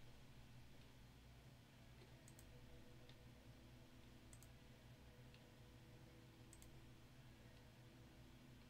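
Faint computer mouse clicks, three or so, about two seconds apart, as the randomize button is clicked over and over, over a low steady hum.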